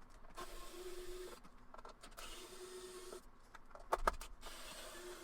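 Small electric screwdriver motor running in three short bursts of about a second each, backing out the perimeter screws of a PS5 disc drive assembly, with a few sharp clicks between bursts.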